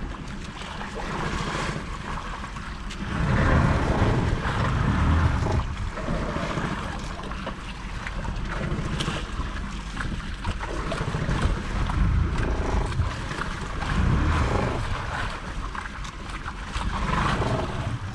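Wind buffeting the microphone, with sea water slapping and splashing against a small outrigger boat's hull and floats, swelling and easing every few seconds.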